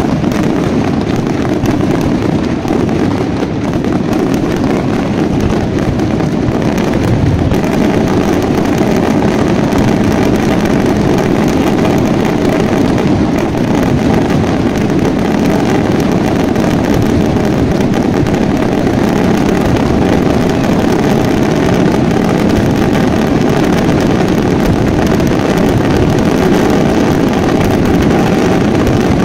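Daytime fireworks barrage: shells and crackling white stars going off so fast that the bangs and crackle merge into one loud, steady rumble, growing a little louder about eight seconds in.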